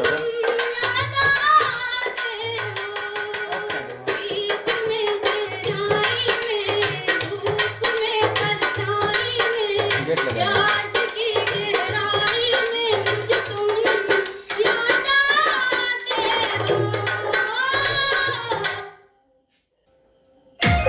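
A song with singing over a steady drum beat, played on the Vemax Vogue 60 W tower speaker. It cuts off about 19 seconds in, and after a second or so of silence another track starts near the end.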